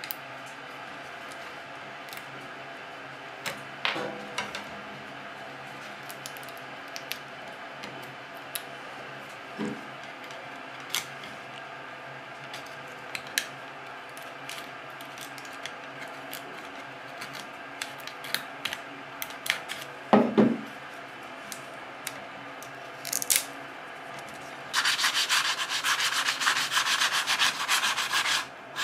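Small clicks, taps and scrapes of old guide rings being cut and picked off a fishing rod blank by hand, with a louder knock about twenty seconds in. About twenty-five seconds in, sandpaper starts rubbing rapidly back and forth along the rod blank, sanding it down; this is the loudest sound.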